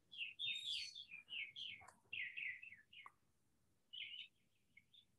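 Faint songbird singing: runs of quick chirps and trills through the first three seconds, then, after a pause, a shorter flurry of notes about four seconds in.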